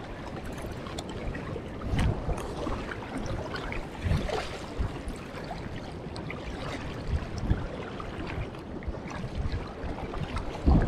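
Fast river current rushing and churning along the shore, a steady watery noise, with a few dull low thumps scattered through it.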